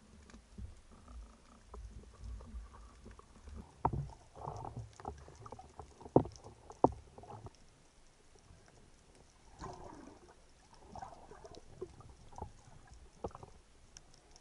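Underwater sound picked up by a diver's camera: muffled sloshing and gurgling of water with scattered sharp clicks and knocks, two loud knocks about six seconds in, from a speared fish and the spear shaft being handled against the rock.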